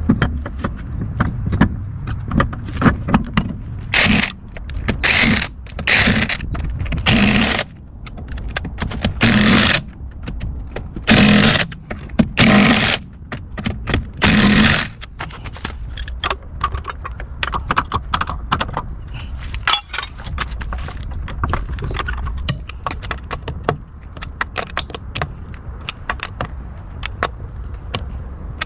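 Metal tools and brake parts clinking and scraping during brake and hub reassembly, with a run of eight short, loud bursts, each under a second, in the first half.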